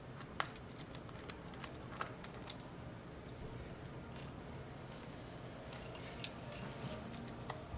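Small tool clicks and light scraping against the internals of an opened MacBook Air, as connectors and cables are worked loose: scattered faint ticks, the sharpest about half a second and two seconds in, over a low steady hum.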